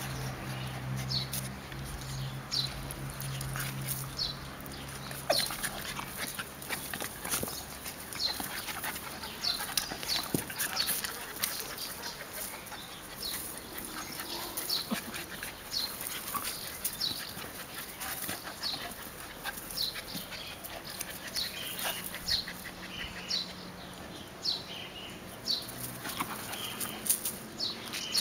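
Welsh and Airedale terrier puppies play-fighting: low growling with scuffling and pawing in loose dirt, with short high squeaks.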